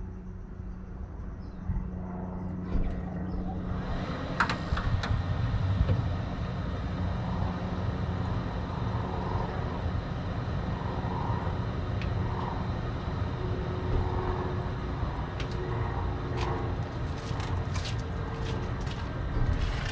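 Rheem tankless gas water heater running, its combustion fan and burner giving a steady hum and low rush that grows about four seconds in, with scattered light clicks.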